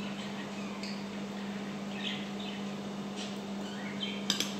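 Spoon and fork clinking against a plate once near the end, over a steady low hum, with a few faint, short, high chirps.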